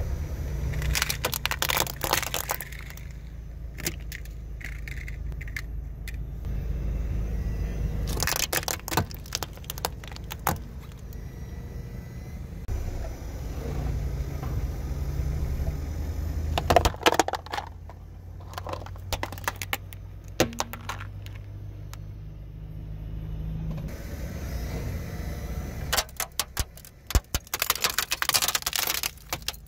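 Car tyre rolling over and crushing plastic objects (toy cars, cups, plates), with clusters of sharp cracking and snapping, four bursts in all, over the low running of the car's engine.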